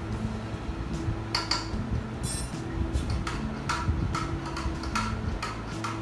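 A metal spoon clinking against glass bowls in a run of light taps, about three a second, starting a little over a second in. The spoon is scraping thick sweetened condensed milk out of a small glass bowl as it is poured.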